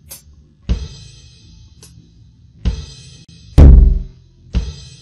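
Playback of an electronic drum kit recording processed by ReaFir noise subtraction: four separate drum hits, the loudest a deep bass-drum hit a little past halfway, over a steady low hum left in the recording.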